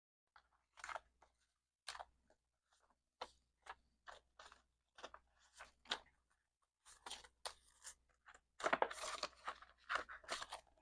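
Paper bills and cash envelopes being handled, giving a scattered series of short crinkles and crackles that get busier and louder near the end.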